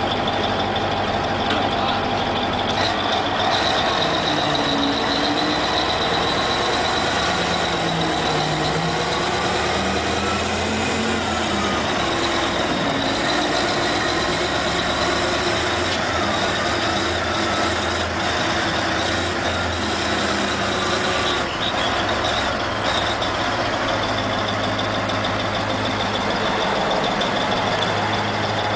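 Heavy diesel engine of a CAT wheel loader running under load as it lifts and tips a large stone block, its pitch rising and falling with the throttle. A steady high-pitched whine sits over the engine.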